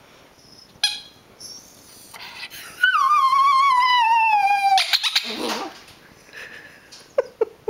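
Rat terrier howling: one long wavering howl of about two seconds that slides steadily down in pitch and ends in a rough grumble, set off by a squeaker toy. A few quick squeaks of the squeezed squeaker toy near the end.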